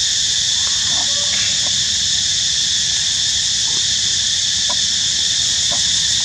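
Steady, high-pitched drone of an insect chorus, with a few faint short chirps mixed in.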